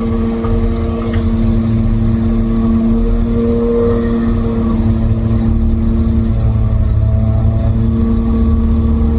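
Diesel engine of heavy machinery running steadily at constant speed, a continuous even hum over a low rumble.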